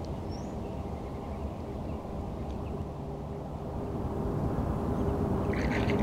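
A steady low hum of a distant engine that grows a little louder in the second half. A short high chirp from a small bird comes near the start, and a brief bird call comes near the end.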